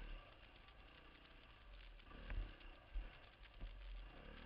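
Dirt bike engine running faintly under a low rumble, with three short knocks in the second half as the bike jolts over the trail.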